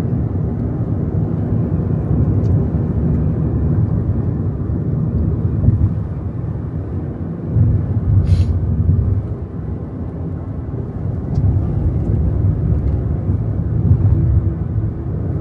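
Low, steady rumble of a car on the move, swelling and easing now and then.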